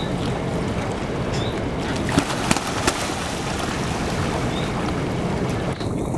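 Steady wind rumble on the microphone over moving water, with a few sharp splashes about two to three seconds in as mute swans chase each other beside the boat.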